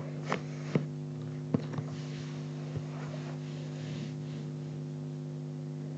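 Steady low electrical hum with a few faint clicks in the first three seconds.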